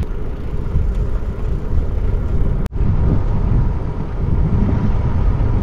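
Steady low rumble of wind buffeting the microphone outdoors, with a faint steady hum underneath; the sound cuts out for an instant about two and a half seconds in.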